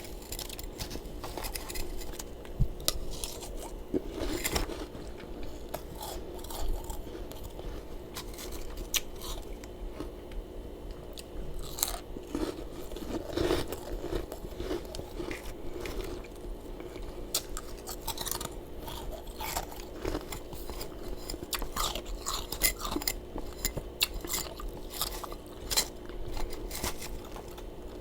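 Close-up crunching and chewing of powdery freezer frost: irregular crisp crackles as mouthfuls are bitten and chewed, over a steady low hum.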